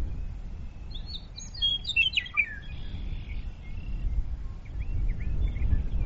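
A western meadowlark sings one fluty, tumbling phrase of quick falling notes about a second in, followed by a few fainter short notes, over a steady low rumble.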